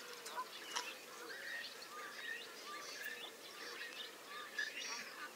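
Early-morning chorus of mixed wetland birds: many short chirps and calls overlapping from several directions, over faint steady road noise in the background.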